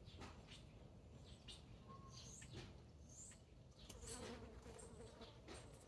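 Faint buzzing of a flying insect, strongest about four seconds in, over soft rustling of garden plant leaves being handled.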